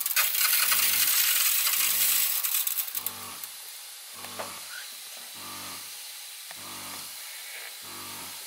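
Water spraying from misting nozzles with a steady hiss, loudest for the first couple of seconds and then softer. Under it, a small electric sprayer pump hums in short pulses about once a second, cycling on and off.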